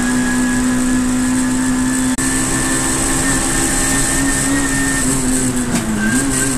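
Saloon race car's engine running flat out at high, near-steady revs, heard from inside the cockpit along with road and wind noise while the car accelerates down a straight. The sound drops out for an instant about two seconds in.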